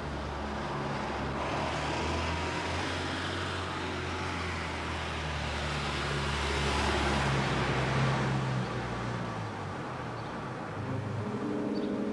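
Mercedes-Benz van driving up and passing by, its engine running with tyre noise, loudest about two-thirds of the way through and then fading. Music comes in near the end.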